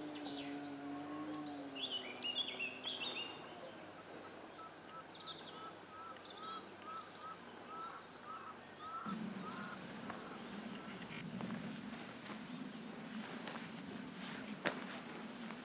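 Forest birdsong over a steady high-pitched whine: a few quick chirps, then a bird repeating short rising notes about twice a second. Footsteps on the forest path come in near the end.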